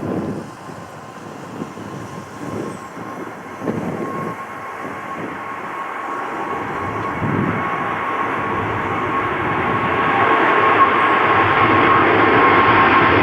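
Jet airliner approaching, its engine noise swelling steadily louder over the last half with a steady whine on top. Low gusts of wind buffet the microphone in the first half.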